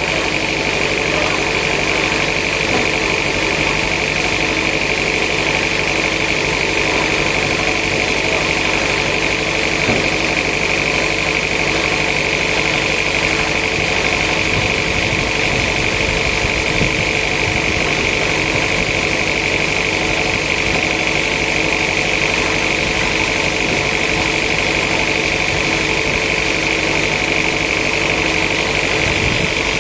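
Sawmill machinery running steadily with a constant hum and a high whine that holds the same pitch throughout.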